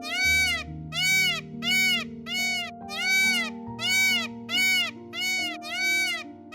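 Music: a high rising-and-falling call, repeated evenly about twice a second, over held low chords.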